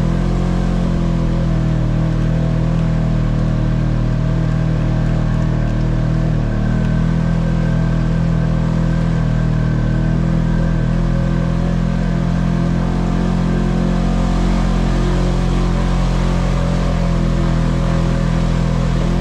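ATV engine running steadily while riding a trail, a continuous drone that holds an even pitch.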